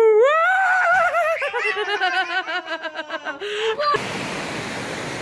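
A small child's high-pitched voice squealing up and down, then breaking into rapid giggling. About four seconds in it cuts off abruptly and a waterfall's steady rushing takes over.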